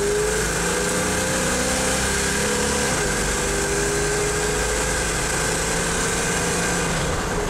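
1969 Pontiac GTO's 400 V8, heard from inside the cabin, accelerating with its pitch climbing. About three seconds in the pitch drops sharply as the automatic is shifted up by hand, then it climbs again more slowly in the next gear.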